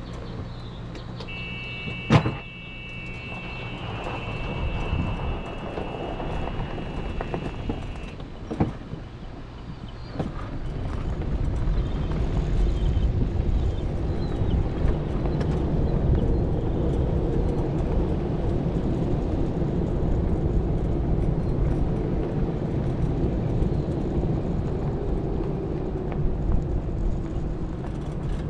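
A small vehicle sets off and drives along a paved road. There is a sharp click about two seconds in and a steady high beep for several seconds. From about ten seconds in comes a steady rumble of motor and road noise, with a faint whine that rises and falls.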